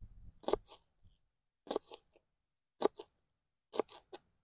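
Knife cutting through spring onions: short, crisp chops in quick pairs, about one pair a second, four times.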